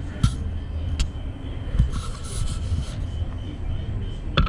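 A few light knocks and a brief scraping rub from hands handling tools or equipment, over a steady low rumble, with a cluster of clicks near the end.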